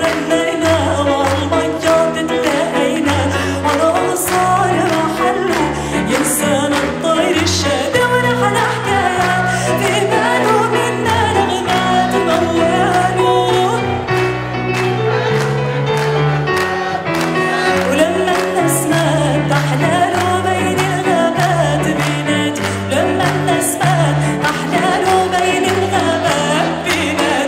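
A woman sings a song into a microphone over amplified music with a moving bass line and a steady beat.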